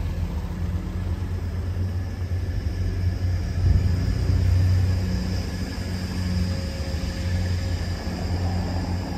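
Passenger train crossing a steel railway bridge overhead: a steady low rumble with a faint engine hum.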